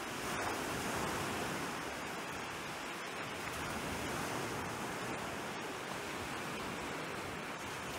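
Steady wash of sea surf breaking on a sandy beach, an even hiss that swells slightly now and then.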